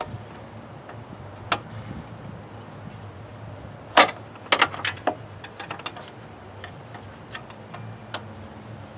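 Scattered sharp metallic clicks and clanks of hand tools and parts during radiator removal, with a loud cluster of knocks about four seconds in, over a steady low hum.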